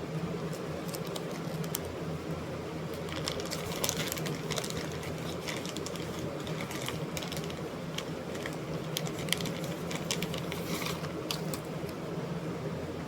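Runs of quick, irregular light clicks over a steady low hum. The clicks start about three seconds in and thin out near the end.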